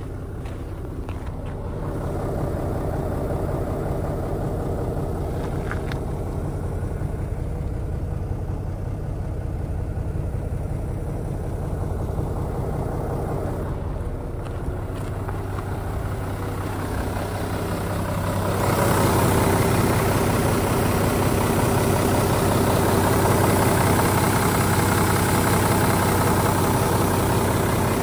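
Mitsubishi Aero Midi bus's 6D15 turbo diesel engine idling steadily, getting louder and fuller about two-thirds of the way through.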